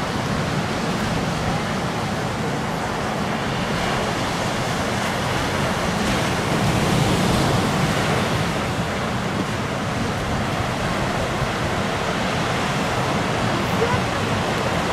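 Ocean surf breaking along the shore: a steady rushing wash of water that swells a little midway.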